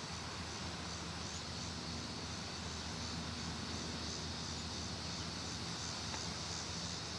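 Outdoor garden ambience: a steady high drone of insects, with a low steady mechanical hum underneath.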